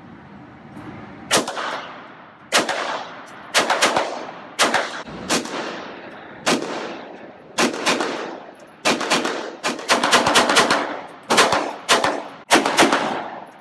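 HK SP5K 9mm roller-delayed semi-automatic pistol firing a string of about twenty single shots, each echoing in an indoor range. The shots come about a second apart at first, then quicker, in pairs and threes.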